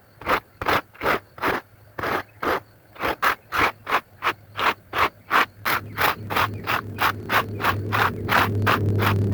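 A wet carpet being scrubbed by hand in brisk, rhythmic strokes, about three a second, quickening as they go. About halfway through, a steady low motor hum comes in and grows louder under the strokes.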